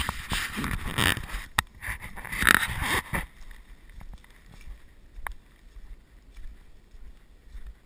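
Rubbing and scraping against a head-mounted GoPro camera for about three seconds, then much quieter with a couple of faint ticks.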